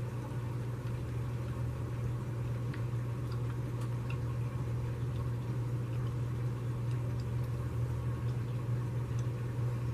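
Steady low hum with a few faint, scattered clicks.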